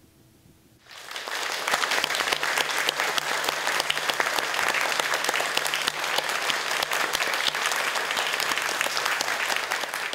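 A hush for about a second, then an audience breaks into applause, many hands clapping steadily.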